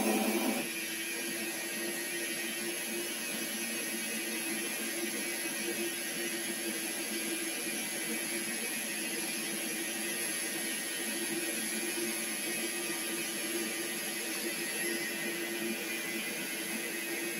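Metal lathe running with its chuck and workpiece spinning: a steady hum with a faint high whine over it. A louder stretch of noise drops away under a second in, leaving an even running sound.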